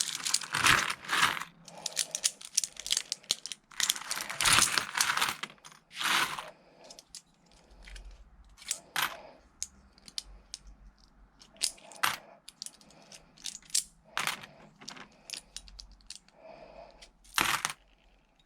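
Pennies clinking and clattering against each other and a strong neodymium magnet as they are picked up by it and pulled off it. Dense clatter comes in the first six seconds, then scattered single clicks and short jingles.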